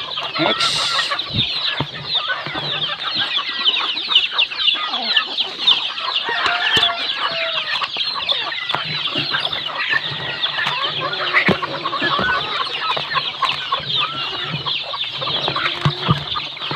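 A flock of chickens clucking and calling, a dense chatter of short high calls that keeps up without a break.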